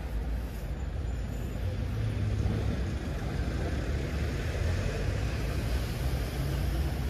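Road traffic noise: a steady low rumble with a hiss that grows louder from about three seconds in.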